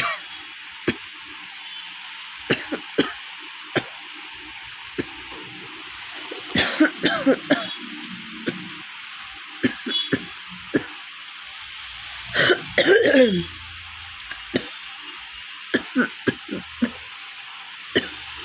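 A woman coughing over and over with a real cough from a sore, congested throat: short single coughs throughout, and two longer coughing fits about six and twelve seconds in.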